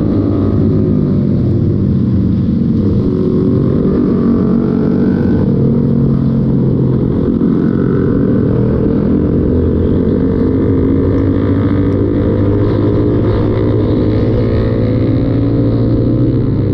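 Motorcycle engine running under way, its note rising and falling gently with the throttle, with wind and road noise on a helmet-mounted microphone.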